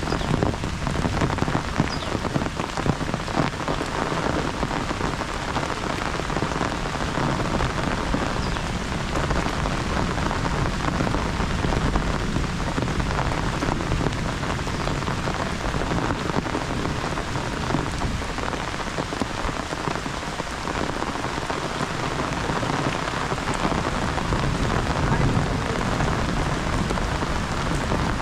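Heavy rain falling steadily, a dense, even patter of drops with no distinct single events.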